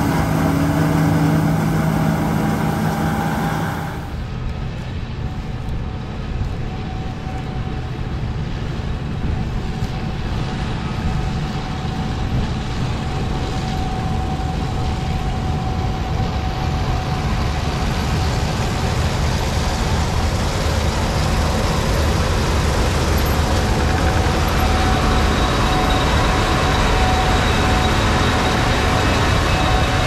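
Combine harvesters running while cutting wheat: first a John Deere S770's engine hum, then, about four seconds in, the sound changes abruptly to a Gleaner S97's engine and threshing machinery with a steady whine. The Gleaner grows louder toward the end as it comes close.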